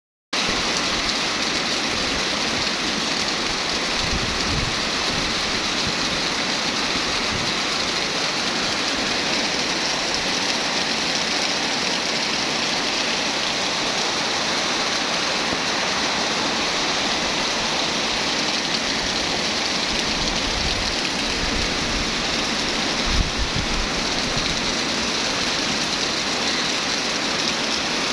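Heavy rain pouring down as a steady, dense hiss. Gusts of strong wind now and then add a low rumble on the microphone.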